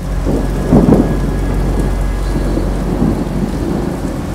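Heavy rain pouring down with a low rumble of thunder, which swells loudest about a second in and then settles into steady rain.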